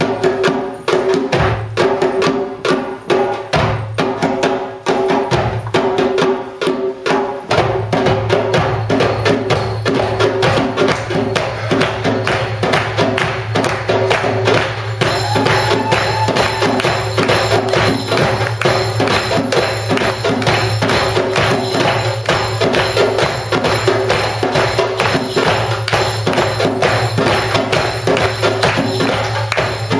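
Live hand-drum ensemble of darbukas and a tambourine playing a fast, steady Middle Eastern rhythm, dense with sharp strokes. A steady low layer joins about seven seconds in and fills out the sound.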